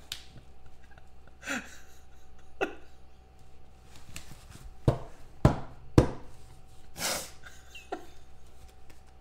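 Rigid plastic card holders clicking against each other as a handful of graded-style trading card holders is gathered and squared into a stack, with three sharp clacks about five to six seconds in. A short breathy sound follows about a second later.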